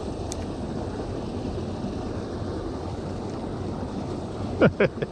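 Steady rushing of water running through the concrete dam spillway. Near the end there is a short, loud sound falling in pitch.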